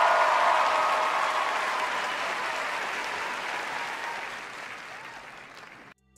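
Theatre audience applauding, loudest at first and dying away over several seconds, then cutting off abruptly near the end.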